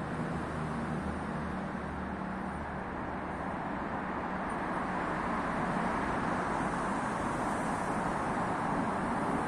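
Steady road traffic noise from the multi-lane road beside the station, a continuous wash with a low engine hum early on, growing a little louder in the second half.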